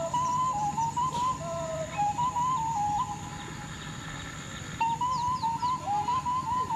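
A single high melody line on a flute-like wind instrument, moving in small steps between held notes and pausing for about two seconds in the middle. A few quick high chirps come in about five seconds in.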